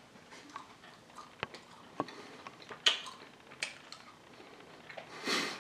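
Small fish skeleton being chewed, the bones giving irregular small crunches and clicks, with a short breathy rush near the end.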